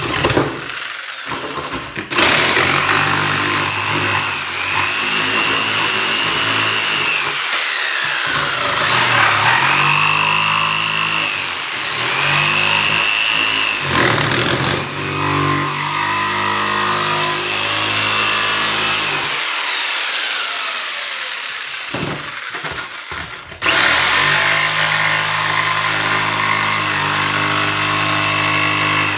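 Corded jigsaw running and cutting through plywood, its motor whine rising and falling as the blade is fed through the cut. About three-quarters of the way through it eases off briefly, then runs up to full speed again.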